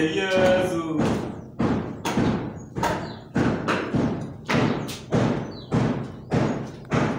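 A steady series of dull thuds, a little under two a second, each with a short ringing tail, with a brief pitched sound at the very start.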